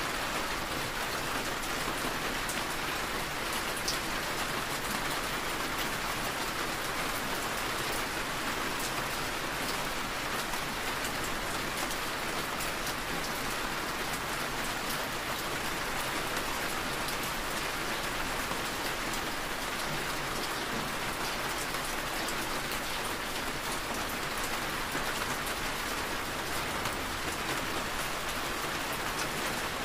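Steady rain on a moving car, heard from inside the cabin: an even hiss with the odd sharp tick of a drop striking the glass or body.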